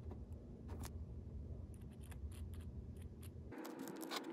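Faint small clicks and taps of hands handling a model locomotive's metal chassis and a plastic oil bottle while oiling its worm gear, over a low hum that drops out about three and a half seconds in.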